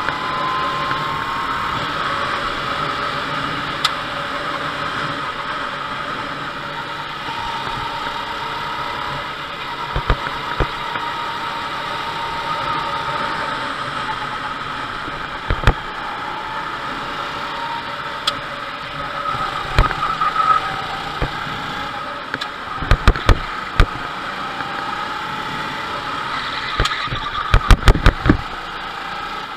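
Rental go-kart engine running at speed, its pitch rising and falling with the throttle through the corners, over a steady rush of noise. Several sharp knocks cut in, most of them in the last few seconds.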